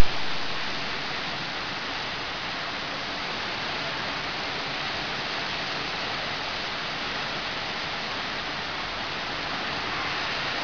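Heavy rain pouring down onto trees and leaves: a steady, dense hiss. A brief click at the very start.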